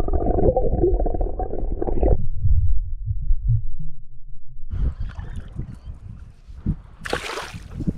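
Water heard by a camera held beneath the surface: a muffled rumble with bubbling knocks for about two seconds, then only a low rumble. From about five seconds in, shallow water sloshes and splashes in the open air, with a short, louder splash near the end.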